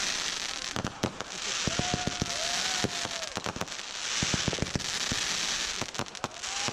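Consumer fireworks going off: a rapid run of sharp bangs and pops over continuous crackling, with a few short whistling tones about two seconds in and near the end.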